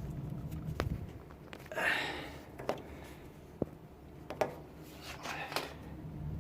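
Rubber drain hose and plastic fittings being handled and pushed into place: scattered light clicks and taps with brief rustling, over a low steady hum.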